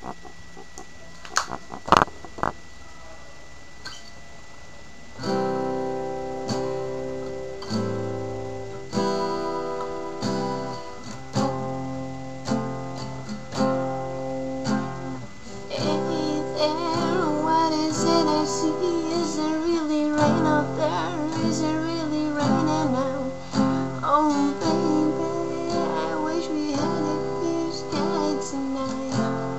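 A few sharp handling knocks, then about five seconds in an acoustic guitar starts playing chords in a steady rhythm. From about halfway a woman's voice sings along with the guitar.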